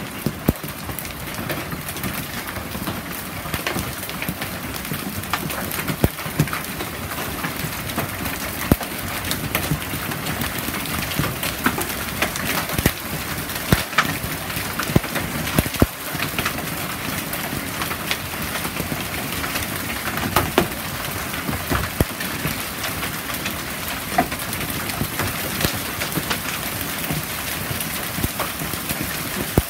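Hail falling steadily: a dense hiss scattered with many sharp clicks as hailstones strike the lawn, the concrete patio and the fabric shade canopy overhead.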